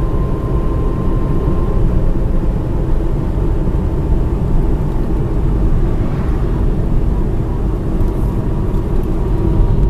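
Steady in-cabin rumble of a manual car driving along a road: engine and tyre noise heard from inside the car.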